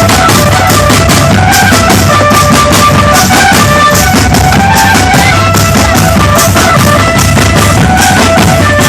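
A drum band playing loudly: rapid, dense snare and bass drum strokes under a melody of held notes that steps up and down.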